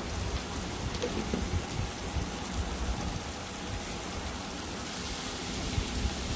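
Chopped tomatoes and onions with ginger-garlic paste sizzling steadily in hot oil in a kadai while the tomatoes soften.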